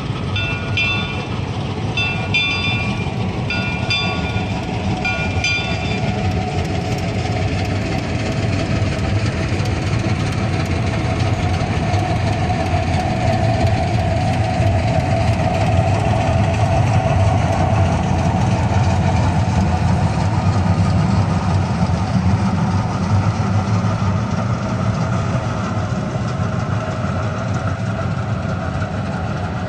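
A Pacific Coast Shay, a geared steam locomotive, working a passenger train past, a steady low rumble that builds toward the middle. A bell rings about once a second during the first six seconds.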